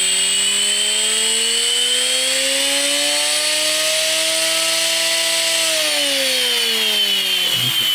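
Antweight combat robot's brushless weapon motor spinning its blade: a high-pitched whine that climbs steadily as the blade spins up to about half speed, then drops from about six seconds in as it is throttled back.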